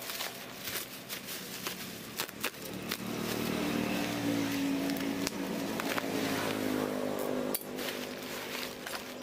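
Bubble-wrap plastic crinkling and rustling as it is pulled open by hand, with scattered sharp crackles. A steady low drone runs under it for a few seconds in the middle and then stops.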